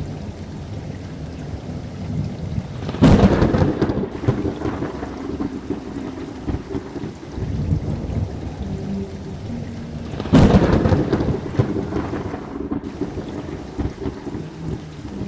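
Thunderstorm: steady rain with two sudden thunderclaps, about three seconds in and again about ten seconds in, each rumbling away over a couple of seconds.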